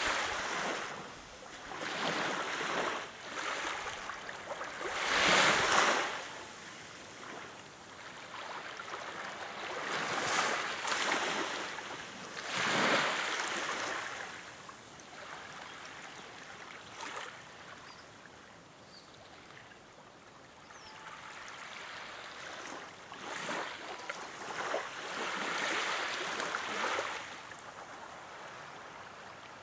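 Small sea waves washing in and lapping against the shore, surging in swells every few seconds and falling back between them.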